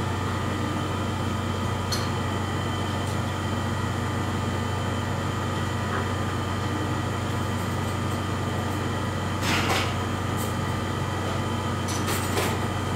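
Supertec STP-618CII surface grinder running through its automatic step-grind cycle: a steady machine hum with several steady tones. It is in the fine-feed stage, taking tenth-thousandth cuts near final depth. Brief louder noises come about nine and a half seconds in and again around twelve seconds.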